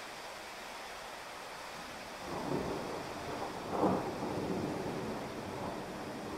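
Heavy rain falling steadily on a street, with a rumble of thunder that swells about two seconds in, peaks near the middle and slowly fades.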